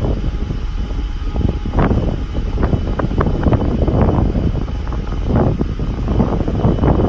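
Wind buffeting the microphone in irregular gusts over a steady low rumble, on the open deck of a moving cruise ship.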